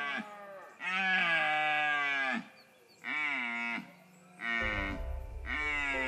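Red deer stags roaring in the rut: a series of long, pitched bellows, each falling in pitch at its end, three of them following one another with short gaps. A low rumble joins the calls about halfway through.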